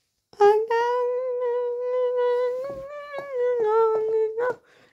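A person humming one long, high note. The pitch wavers slightly, rises a little past the middle and drops lower near the end.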